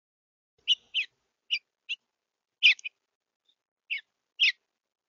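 A small bird giving about seven short, high chirps at irregular intervals.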